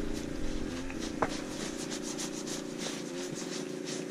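Light rustling and small ticks of an ice-fishing rod and spinning reel being handled, with one sharper click about a second in, over a steady low hum.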